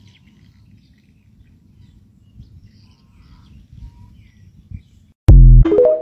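Faint low rumble of wind on a phone microphone with scattered faint bird chirps. About five seconds in, a click and then a sudden loud electronic sound rising steeply in pitch: the TikTok end-screen sound.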